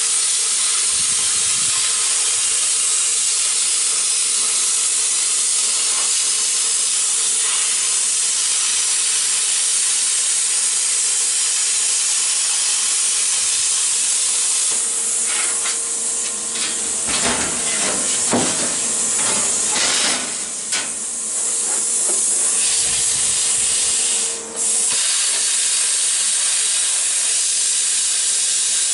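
Plasma cutter cutting 14-gauge sheet steel: a loud, steady hiss of the arc and air jet with a steady tone under it, and uneven crackling for several seconds midway. The hiss drops out for a moment near the end and resumes at once.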